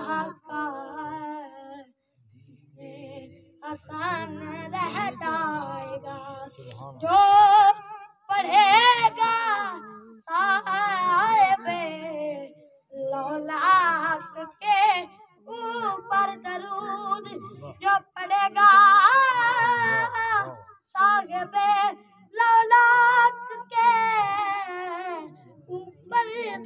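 A boy singing a naat unaccompanied, in long phrases with a wavering, ornamented melody and short breaks for breath between them.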